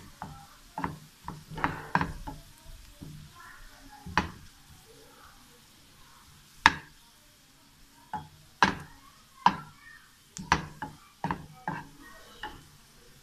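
A spatula scraping and knocking against a frying pan while sliced onion fries in a little oil with a faint sizzle. The knocks come irregularly, with a quieter stretch in the middle.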